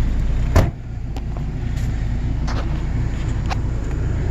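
Steady low rumble of an idling vehicle engine, with one sharp knock just over half a second in and a few light clicks afterwards.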